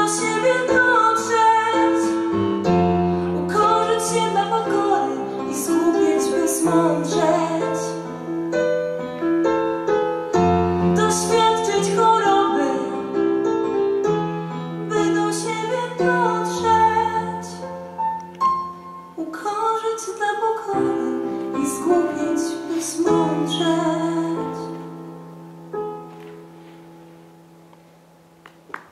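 A woman singing with piano accompaniment, live on stage. Near the end the song finishes and the last piano chord fades away.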